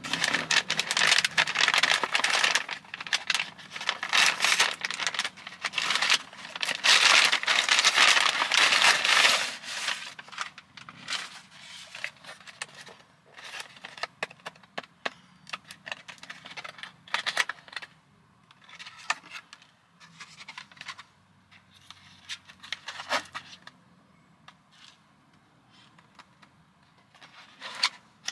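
Paper takeout bag crinkling and tearing as it is unwrapped, dense and loud for about the first ten seconds. Then sparser rustles and clicks as a cardboard burger box is handled and opened, with one sharp crackle near the end.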